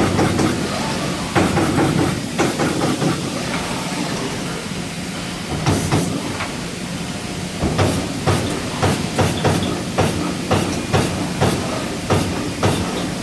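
Amada CNC punch press punching sheet metal: runs of sharp, rapid strokes at about two a second, broken by short pauses, over a steady machine hum.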